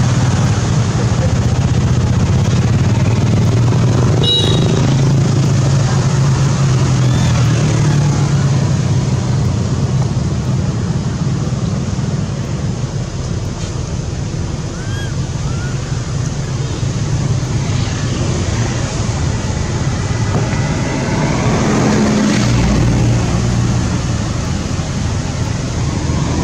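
Steady low hum of motor-vehicle engines running, with a few brief high squeaks about four seconds in.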